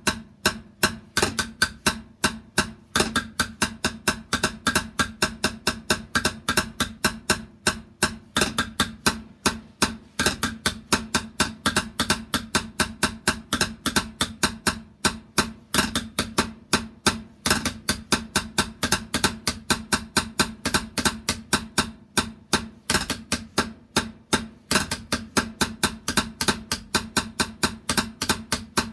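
Drumming: fast, steady strikes, several a second, kept up without a break.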